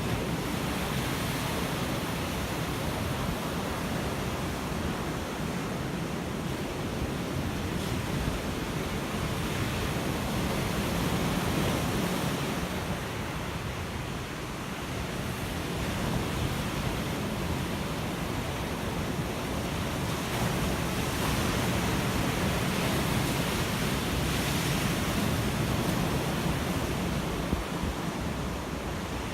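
Ocean surf: waves breaking and washing in a steady rush that swells and eases slowly, dipping a little about halfway through.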